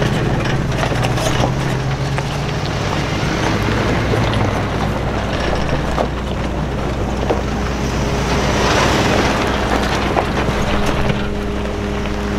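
Engines of a line of off-road SUVs running at low speed as they drive slowly along a dirt and gravel track, tyres crunching over the stones. Wind buffets the microphone throughout.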